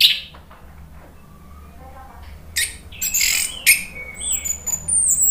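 Orange-headed thrush (anis merah) singing: a sharp note at the start, a pause of about two seconds, then a dense run of loud, varied notes with high, thin whistles near the end.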